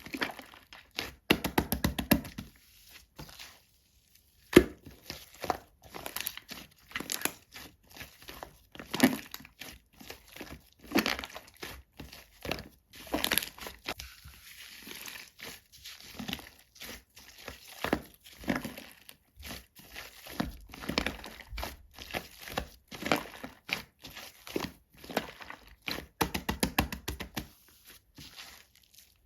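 Shaving-foam slime being squished and stretched by hand, giving irregular runs of small sticky crackles and pops.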